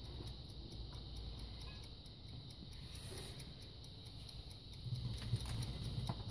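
Faint rapid ticking, about four to five ticks a second, over a low steady hum that grows a little louder near the end.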